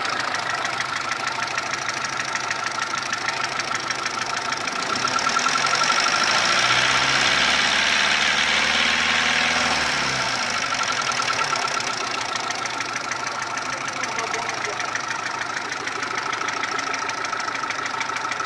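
Mitsubishi 1.3-litre petrol engine running with an abnormal noise that appeared after its cylinder head and block were overhauled. It gets louder for about five seconds midway, then settles back.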